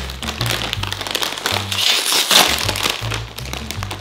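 Snack bag of pretzel thin crisps being pulled open and crinkled, a dense crackle that is loudest about halfway through, over background music with a steady bass line.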